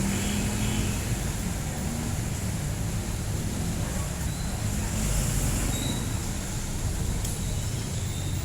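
Street traffic: a steady low rumble of vehicle engines running close by, with no single event standing out.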